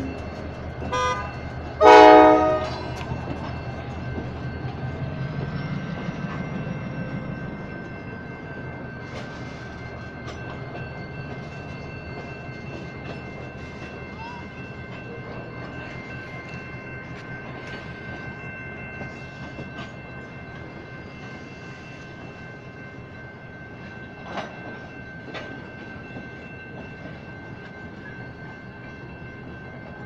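Freight train of gondola cars rolling through a grade crossing, wheels clacking on the rails, while the crossing's electronic warning bell rings steadily. About a second in a horn gives a short toot, then a louder, longer blast a second later.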